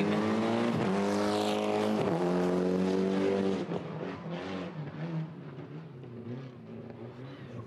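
Mitsubishi Lancer Evo III rally car's turbocharged four-cylinder engine running hard at a steady high note, broken briefly twice, then dropping away to a quieter, uneven note about three and a half seconds in as the car comes off the throttle.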